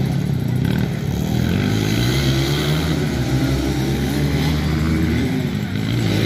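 Dirt bike engine running, holding a fairly steady pitch.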